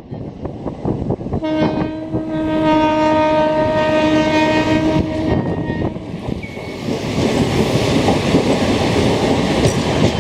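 Diesel or electric locomotive horn sounding one long, steady blast of about four seconds, starting about a second and a half in, over the running noise of a train on the rails. The train's rumble and rail noise grow louder near the end.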